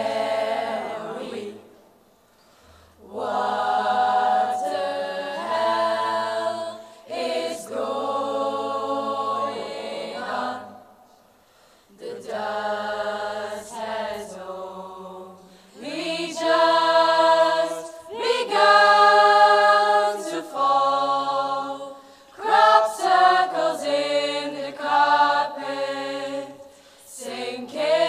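School choir singing held chords in several phrases of a few seconds each, with short breaks between them.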